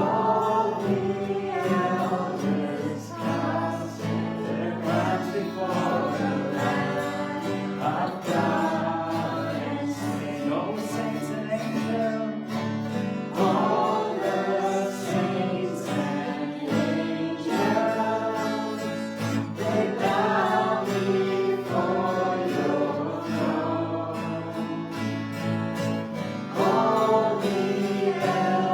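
A worship song in a church service: several voices singing together to a guitar accompaniment.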